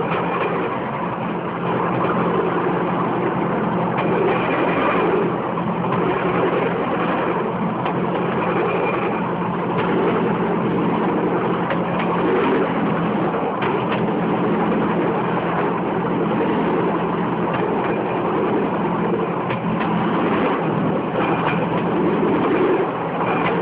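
Bamboo train's small engine running steadily as the platform rolls along the rails, with a rattling of wheels on the track and a few sharp clicks.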